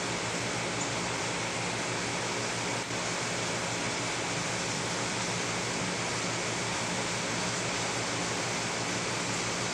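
Steady, even rushing noise with no breaks or separate events.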